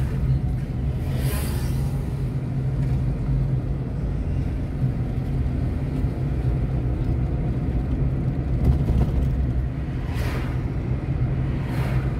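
Car interior noise while driving: a steady low engine and road rumble. Brief rises of noise come about a second in and again near the end.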